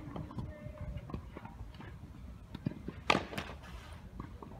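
Tennis ball being struck by rackets and bouncing on a sand-filled artificial grass court during a rally. There are light knocks throughout, and one much louder, sharp racket hit close by about three seconds in.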